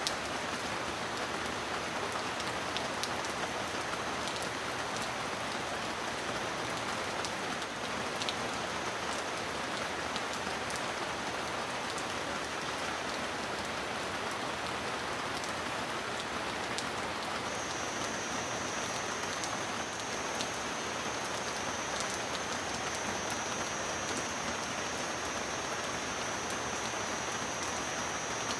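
Heavy rain falling steadily, with scattered sharp drop ticks over an even hiss. A thin, high steady tone runs through it and grows stronger about two-thirds of the way in.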